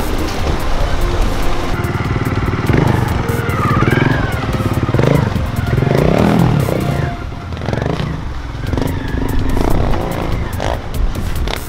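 Trials motorcycle engine revving up and down in short bursts as the bike is worked over rocks, with music playing underneath.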